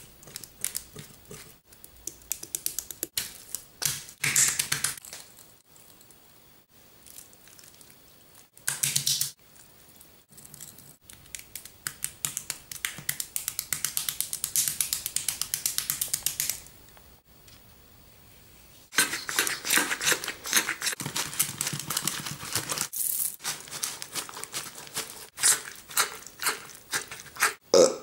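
A raw whole chicken being rubbed hard and fast with a green onion stalk by hand, giving a rapid wet rubbing and scraping noise. It comes in several bouts of a few seconds, with quiet gaps between and a long bout near the end.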